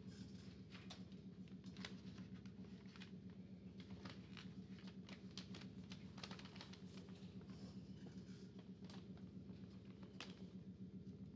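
Near silence: a steady low hum with faint, scattered light clicks and taps.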